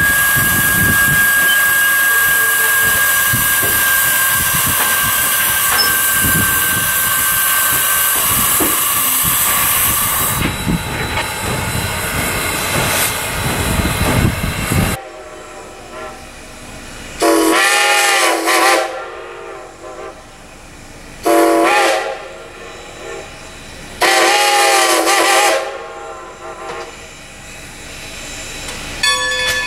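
Loud steady steam hiss that cuts off suddenly, followed by a steam locomotive whistle blowing three blasts, long, short, long. Each blast's pitch bends as the whistle opens and closes.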